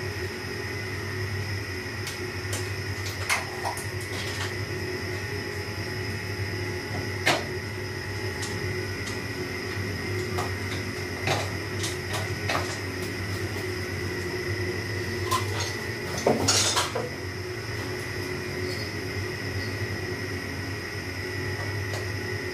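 Scattered sharp clicks and knocks of hard plastic and metal air-conditioner parts being handled and set down, with a louder rattling clatter about sixteen seconds in. A steady hum runs underneath.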